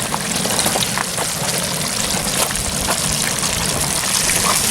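Water running steadily from a tap while hands are washed under it.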